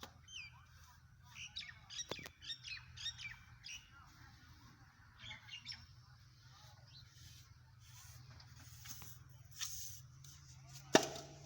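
Small birds chirping and calling with short high notes, some of them falling whistles. A faint steady low hum runs underneath. A single sharp knock comes near the end and is the loudest sound.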